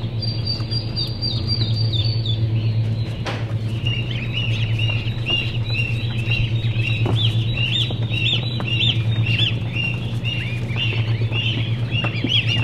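Many day-old waterfowl chicks peeping, short rising-and-falling calls that come thick and fast from about four seconds in, over a steady low hum. A single sharp click about three seconds in.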